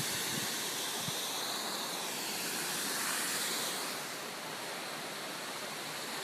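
Steady rushing noise of a waterfall pouring over a dam, even and unbroken, a little softer from about four seconds in.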